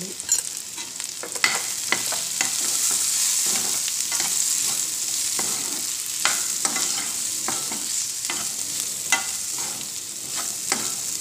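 Green capsicum and peas frying in oil in a metal pan with a steady sizzle, while a steel spoon stirs the ground spices through them, scraping and clinking against the pan at irregular moments.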